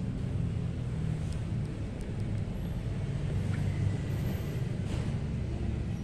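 Steady low engine rumble with no change in pace.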